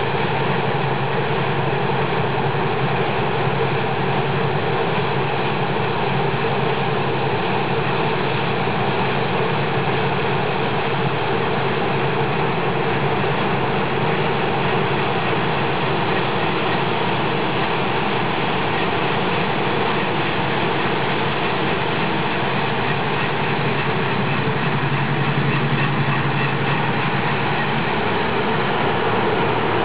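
Claas Lexion combine harvester running steadily as it cuts wheat, a continuous even machine hum of engine and working gear.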